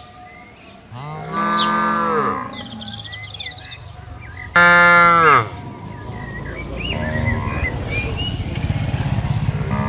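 Cattle mooing: a long moo about a second in and a louder one about five seconds in, each dropping in pitch at the end, with a third starting at the very end. A low rumbling noise builds through the second half.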